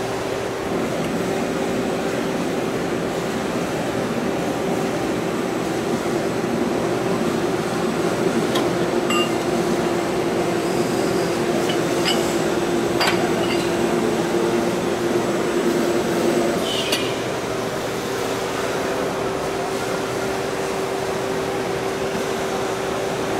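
Steady hum of the Cosen CNC-430 bandsaw running, holding one constant tone, with a few light metallic clinks as the freshly cut 304 stainless steel disc and chips are handled.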